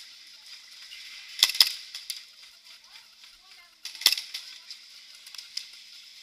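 Airsoft guns firing: sharp pops, two in quick succession about a second and a half in and another about four seconds in, with fainter shots between.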